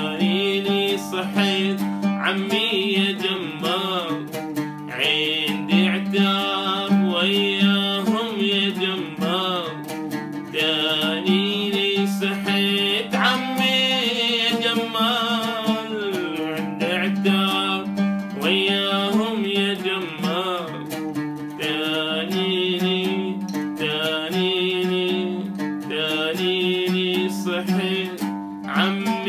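A man singing an Arabic song while accompanying himself on the oud, with plucked strings under the sung melody.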